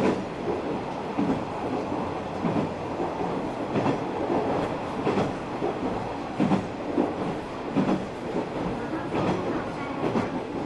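Running sound inside a KiHa 120 diesel railcar under way: a steady diesel and wheel-on-rail rumble, with the wheels clattering over rail joints every second or so.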